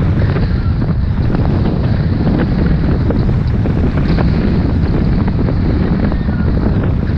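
Wind buffeting the microphone of a downhill-moving action camera, steady and loud, mixed with the scraping of a snowboard sliding over the snow.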